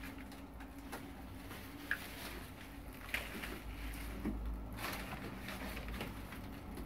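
Faint rustling and a few soft knocks of green onion stalks being gathered and laid on a spread sheet of newspaper, over a low steady hum.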